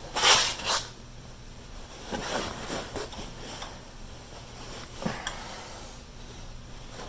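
Metal-on-metal scraping and clinking of an easy out screw extractor being twisted with a wrench in a drilled-out broken bolt: a short loud scrape near the start, scattered light scrapes and clinks, then a single click. The extractor is stripping out instead of biting.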